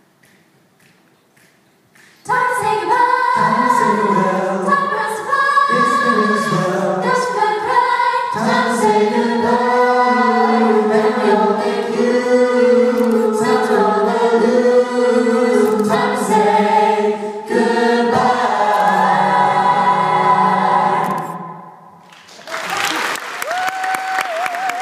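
A vocal group singing a gospel song in harmony, starting about two seconds in. Near the end the singing drops away briefly, then a noisier stretch with one wavering held note follows.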